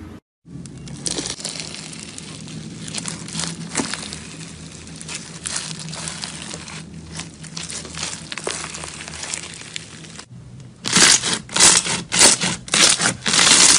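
Crunchy bead-filled slime crackling and crinkling as it is stretched and worked. Near the end come loud, quick crunches, several a second, as a hand presses into the beaded slime.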